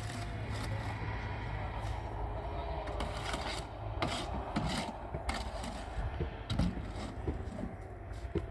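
Irregular knocking and scraping, a string of sharp knocks at uneven intervals over a steady scraping noise.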